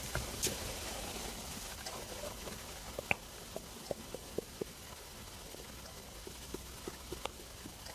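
Human stomach and gut gurgling while digesting a meal: a scatter of short pops and squeaks, bunched about three to four and a half seconds in and again near the end.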